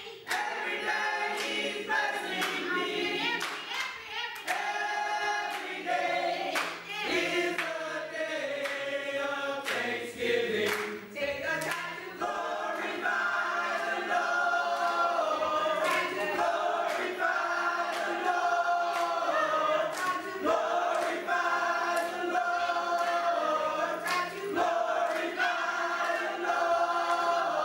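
Church choir singing a gospel song together, with sharp handclaps in time through the singing.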